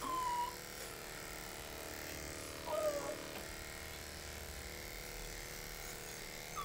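Electric dog clippers fitted with a snap-on comb attachment running steadily as they trim a Yorkshire terrier puppy's rear. The puppy gives a short falling whine at the start and another about three seconds in.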